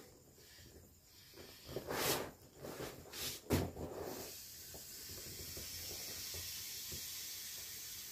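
Air hissing steadily out of the valve of an inflatable vinyl bear chair as it is squeezed to deflate it. About two to four seconds in, a few louder rubbing noises come from the vinyl being pressed.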